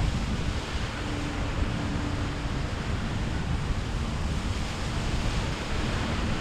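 Wind buffeting the microphone over a steady wash of waves and surf. A faint low boat-engine drone comes and goes beneath it.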